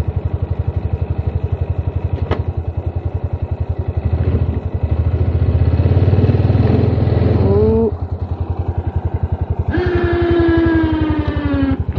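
ATV engine idling, then revved under load from about four seconds in as it pulls a strap to roll a heavy log on a trailer, dropping back to idle just before eight seconds. Near the end comes a loud squeal, slowly falling in pitch, lasting about two seconds.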